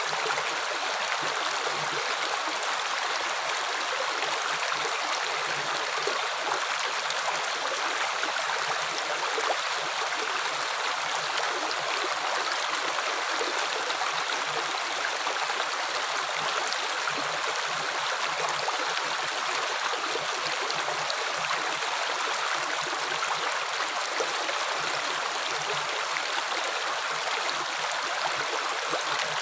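Water running steadily, a continuous rushing and gurgling flow with no pauses.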